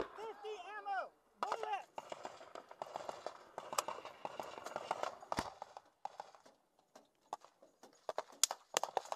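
Shouted voices, then clattering and sharp cracks of gunfire, with one heavy shot about five seconds in and a quick run of shots near the end.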